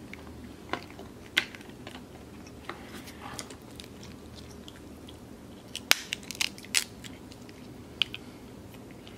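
Crab leg shells cracking and snapping as they are broken open by hand, heard as scattered sharp clicks, several in quick succession about six seconds in, with chewing close by.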